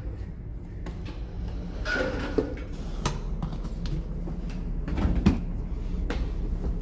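Luggage being moved: a suitcase pulled along and bags knocked about, with clatters around two and three seconds in and a heavier thump about five seconds in, over a steady low hum of ship machinery.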